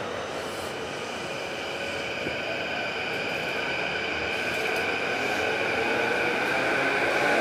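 JR East electric commuter train's VVVF inverter and traction motors whining in several steady tones over running noise, growing steadily louder.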